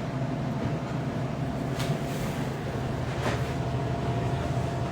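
A steady low mechanical hum with a faint steady tone above it, and a few light clicks now and then.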